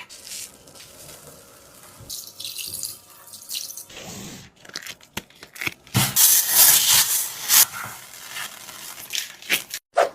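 Squishy toy being squeezed and worked by hand, giving crinkly, wet-sounding rustles and small crackles. The sound is softer at first and grows louder and denser partway through.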